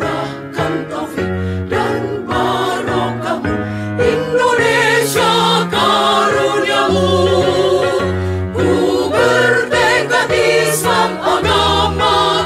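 Women's choir singing a march in parts, voices held with vibrato over steady low sustained notes.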